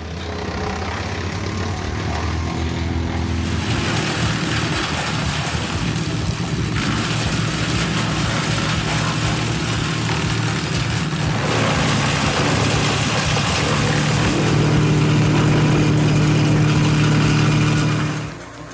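Wood chippers running and shredding branches: a steady engine drone under a rough, noisy chipping sound that changes abruptly several times. The loudest stretch, near the end, is a big Bandit drum chipper with a strong, steady engine hum.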